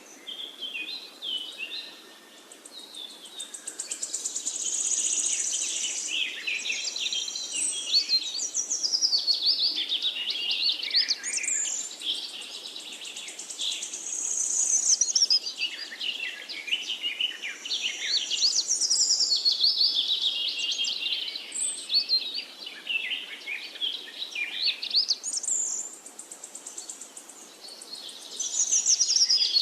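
Songbirds singing and chirping in a dense chorus: rapid high twittering phrases that swell and fade every few seconds.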